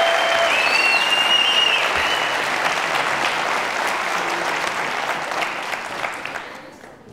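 Studio audience applauding, with a few whistles over it in the first couple of seconds; the applause fades away near the end.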